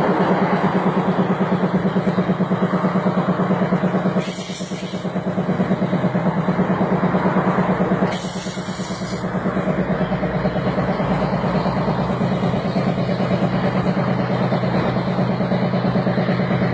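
A motor-driven machine running steadily with a fast, even pulse and a strong low hum, with two short hisses about four and eight seconds in.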